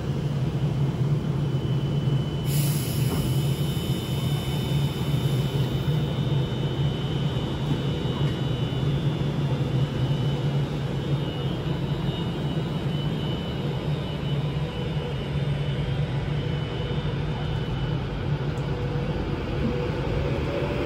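A train running steadily, a constant low hum with a faint high whine that comes in about two and a half seconds in.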